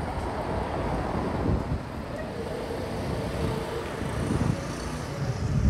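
Street ambience: a steady low rumble of traffic and wind on the microphone, with a vehicle engine hum rising briefly in the middle.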